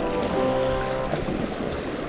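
Background music over wind and water noise; the music's notes end about a second in, leaving wind buffeting the microphone and waves.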